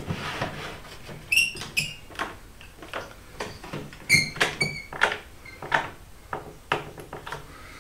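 A wooden board being shifted and worked against its bar clamps on a workbench: a string of light knocks, with two bursts of short squeaks, about a second and a half in and again about four seconds in.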